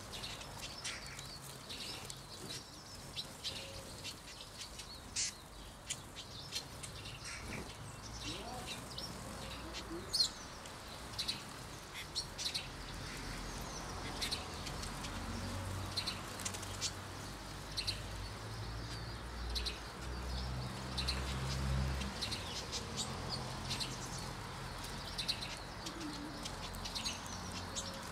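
Eurasian siskins calling with many short, high chirps and twitters, with the flutter of wings as birds come and go. A low rumble swells in the middle and fades again.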